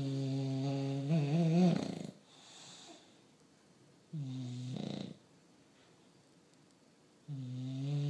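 Sleeping bulldog snoring: three buzzing snores a few seconds apart, each about a second long. The first is the longest and wavers in pitch near its end, followed by a softer breathy exhale.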